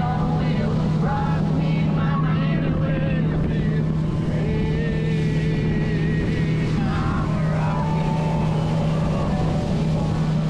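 Motorboat running steadily at speed, its engine holding one even tone under the rush of wind and water off the hull.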